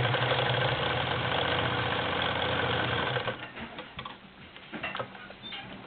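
Singer Spartan 192K straight-stitch sewing machine sewing at a steady speed under the foot pedal, with a low motor hum, then stopping about three seconds in. A few light clicks follow.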